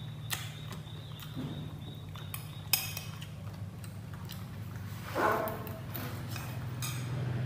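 Metal spoon clinking and scraping against a ceramic plate as someone eats, with several sharp clinks, the loudest a little before three seconds in. A brief voice-like sound comes just past five seconds, over a steady low hum.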